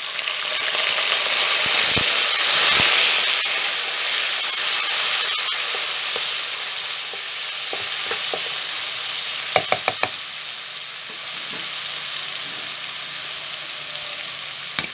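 Browned onions and whole spices sizzling in oil in a wok just after a splash of water, loudest in the first few seconds and then easing to a steady sizzle. A wooden spatula stirs through them, with a quick run of sharp knocks about ten seconds in.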